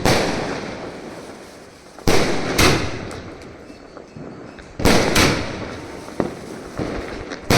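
Multi-shot aerial firework cake firing: loud bangs coming in pairs about every two and a half to three seconds, each followed by a long echoing rumble, with smaller cracks between.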